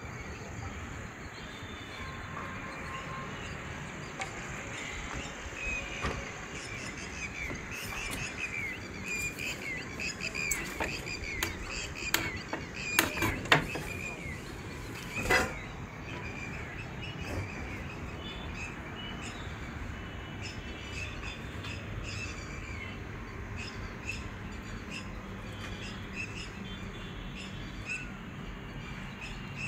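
Birds chirping in short, repeated calls over steady outdoor background noise, busiest around the middle, with a few sharp clicks about halfway through.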